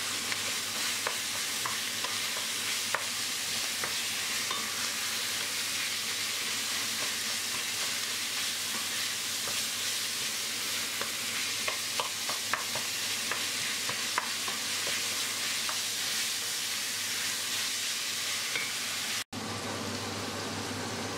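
Ground beef and chopped onions sizzling as they fry in a stainless steel pot, being cooked until the meat's juices evaporate. A wooden spoon stirs them, with scattered small scrapes and knocks against the pan. The sound cuts out for an instant near the end.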